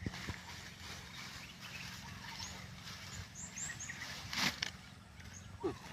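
Rural outdoor ambience: a steady low hum, with a few short high chirps in the middle and a brief rustle about four seconds in.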